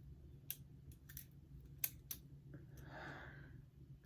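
Balisong trainer's metal handles clicking against each other and the pivot as it is flipped: five or so sharp, irregular clicks in the first two seconds, then a brief soft rustle about three seconds in.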